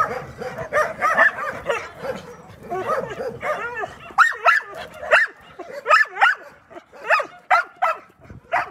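Several dogs barking and yipping, many calls overlapping at first, then sharper single yips coming about twice a second in the second half.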